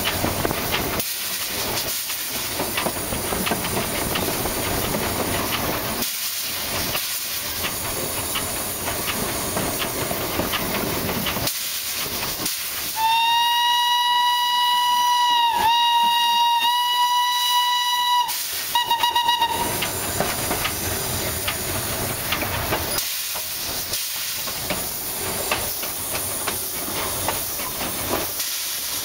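Small 0-6-0 steam tank locomotive on the move, with a steady hiss of steam and running noise. About 13 s in, its steam whistle blows one long blast of about five seconds that wavers twice, followed by a short toot.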